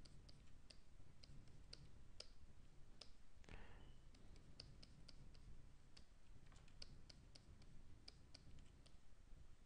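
Faint, irregular clicking from a computer keyboard and pointing device, in two runs with a short pause between, and a brief soft rustle about three and a half seconds in.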